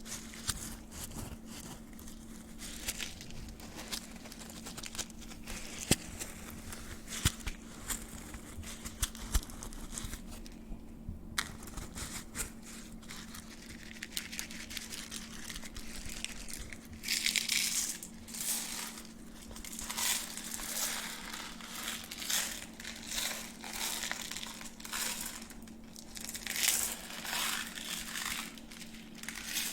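Close-miked crinkling and crackling of gloves being rubbed and handled. It starts as scattered sharp clicks, then from about halfway turns into a run of rustling swells about once a second.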